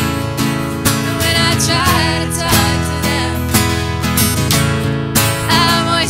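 Two acoustic guitars strummed together in a steady rhythm, with a voice singing over them.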